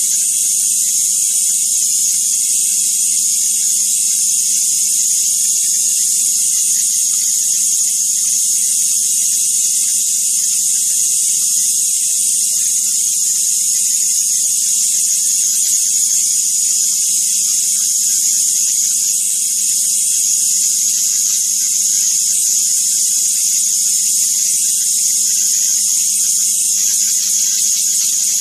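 High-voltage arc streaming off the pins of a cathode-ray tube: a steady, loud, high hiss with a low hum underneath.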